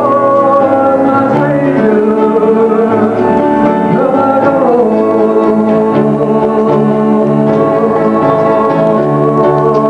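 A man singing a slow country-style ballad into a microphone over instrumental accompaniment, holding long notes with slides in pitch, the largest about four seconds in.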